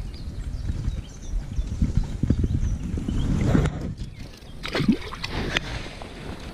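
Brown trout being released by hand into a shallow river: a few sharp splashes about five seconds in as it drops into the water, over the steady rush of the river and a low rumble of handling on the microphone.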